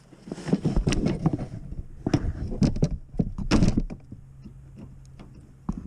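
Irregular metallic knocks, clicks and scrapes as a pry tool works at a hidden retaining clip through a hole in the rusty bumper mounting bracket. They come thick during the first four seconds, ease off, and one more knock lands near the end.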